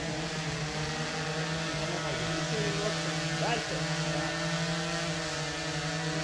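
Camera quadcopter drone hovering: a steady hum holding one pitch.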